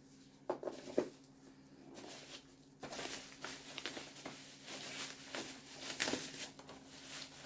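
Packaging being handled and opened: a couple of light clicks, then a stretch of crinkling and rustling as a boxed collectible figure is unwrapped.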